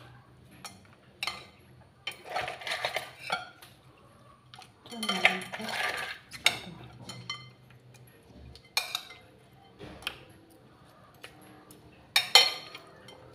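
Metal spoon and tongs clinking and scraping against a ceramic bowl while noodles and a crab are tossed together, in several short bouts of clatter with quieter gaps between.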